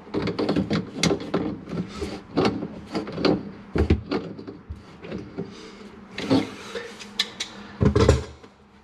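Tongue-and-groove pliers clicking and scraping on a brass slip-joint nut as it is tightened onto a sink drain trap arm, with a few loud knocks near the end.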